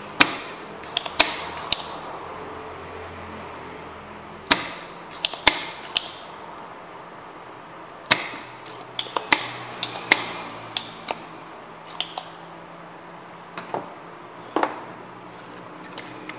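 Sharp clicks and knocks of hands handling a power-supply circuit board and tools close to the microphone, coming irregularly in small clusters of two or three, over a faint steady hum.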